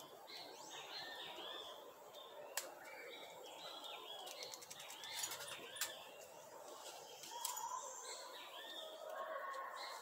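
Several species of birds singing and chirping together, faint, with many short curving chirps throughout and a lower, repeated call joining in during the last few seconds. A few sharp clicks stand out in between.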